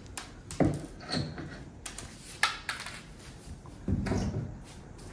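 Claw hammer pulling small brad nails out of a wooden window jamb: several sharp clicks and scrapes of metal on wood, about a second apart.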